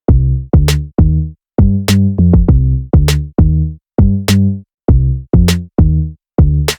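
Electronic background music: a drum-machine beat with short, punchy bass notes.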